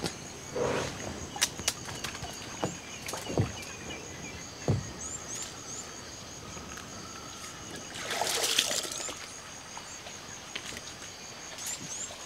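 Water sloshing and splashing as a person wades through shallow water among mangrove roots, with scattered snaps and knocks of branches and a louder rush of splashing and rustling about eight seconds in. A steady high insect drone runs behind it.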